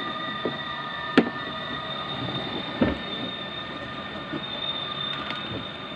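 A steady mechanical whine made of several high tones over a constant running noise, broken by two sharp knocks, about a second and about three seconds in.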